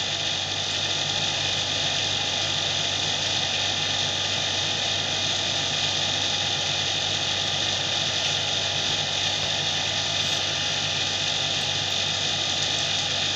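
Steady mechanical background drone: an even hiss over a low steady hum, holding one level throughout.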